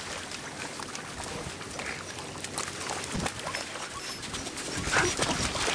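Steady outdoor shore noise of wind on the microphone and water at the edge, with a few short high animal calls. The calls are loudest about five seconds in.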